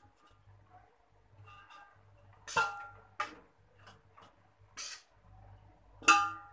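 Metal spoon clinking against a metal cooking pot as cooked rice is spooned in for a biryani layer: a ringing clink about two and a half seconds in, a fainter one just after, a short swish near five seconds, and the loudest clink near the end.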